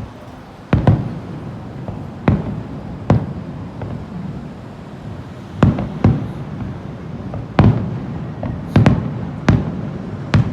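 Aerial fireworks bursting overhead: about ten sharp booms at irregular intervals, some coming in quick pairs, each followed by a low rumbling echo.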